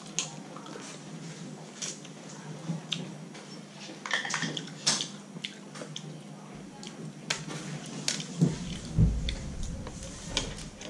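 Cooked Dungeness crab being eaten by hand: shell cracking and snapping in scattered sharp clicks as it is bitten and pulled apart, with wet squishing and chewing of the meat, and a dull thump on the table a little before the end.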